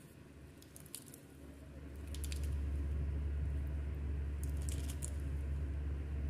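Chopped lettuce salad in creamy dressing being tossed by a plastic-gloved hand in a glass bowl: wet crunching and squishing of the leaves in a few short bursts. A steady low hum comes up about two seconds in and is the loudest thing.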